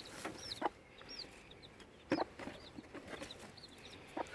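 Young chicks peeping: a run of short, high, downward-hooked cheeps repeating throughout, with three sharp taps at about half a second in, two seconds in and near the end.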